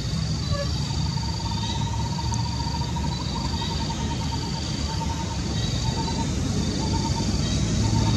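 Forest ambience: a high-pitched call repeating in short bursts about once a second, and a lower pulsed trill coming and going, over a steady low rumble.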